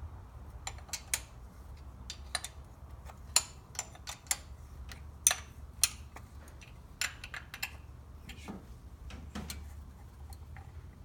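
Hand wrench clicking and clinking against metal while the thermostat housing bolts on a small-block Chevy 350 are tightened down: sharp, irregularly spaced clicks, thinning out near the end, over a low steady hum.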